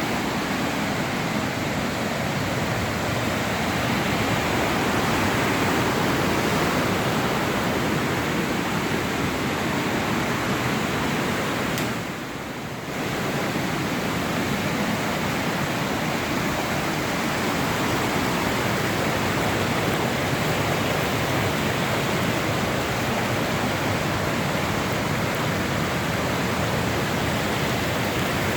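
Steady, loud rushing noise with no distinct events, dipping briefly for about a second some twelve seconds in.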